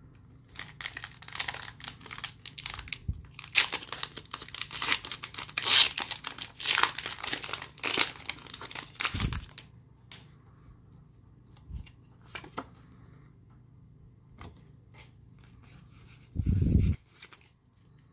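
Foil Pokémon booster pack wrapper being torn open and crinkled, a dense crackling for about nine seconds. After that come sparse soft ticks of cards being handled, and a short low sound near the end.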